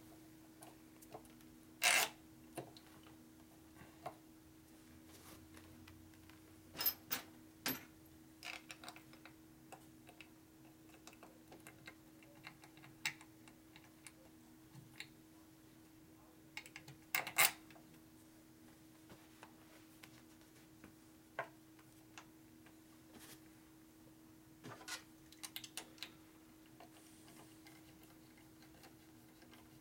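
Scattered sharp metallic clicks and clinks of bolts and a hand tool as bolts are started into a transmission cover on a Harley-Davidson. A steady low hum runs underneath.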